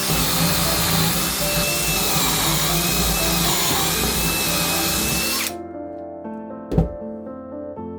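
Power drill running for about five and a half seconds with a wavering whine, then stopping abruptly. Background music carries on, with one sharp knock shortly after.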